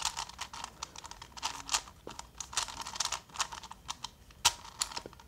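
A new plastic 5x5 puzzle cube being turned by hand: rapid, irregular clicking and clacking as its layers turn, with one sharper clack about four and a half seconds in.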